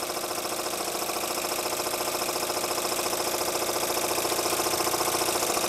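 Bowman-Bryant BM valveless twin-cylinder model steam engine running steadily on steam, with a fast, even beat that grows slightly louder over the few seconds.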